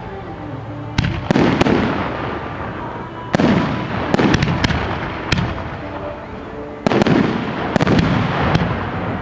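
Fireworks display: aerial shells bursting with sharp bangs about a second in, at about three and a half seconds and near seven seconds, each followed by crackling and a fading rumble. Faint music underneath.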